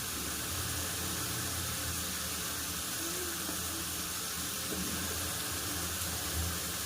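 Steady sizzling hiss of onion-tomato masala frying in oil in a pan, with potato pieces just added.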